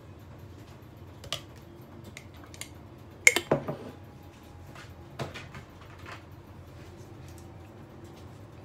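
A few scattered clicks and knocks of kitchen utensils and food being handled on a countertop, the loudest cluster about three seconds in, over a low steady background hum.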